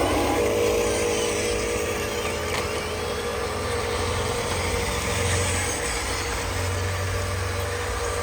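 Radio-controlled model trucks running: a steady electric motor whine over a low hum, holding about the same level throughout.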